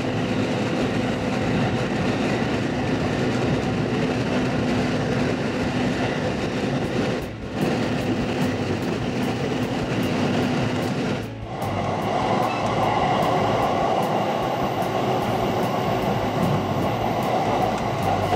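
Local commuter train running, heard from inside the passenger car: a steady rumble of wheels on the rails, dipping briefly twice.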